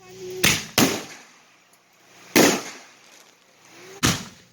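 4-inch canister firework shells going off in sequence from a rack: four sharp bangs of launches and aerial breaks. Two come close together about half a second in, one comes just past two seconds, and one near the end, each trailing off.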